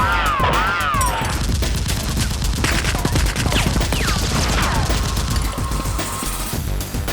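Rapid bursts of gunfire sound effects over background music, with swooping tones in the first second.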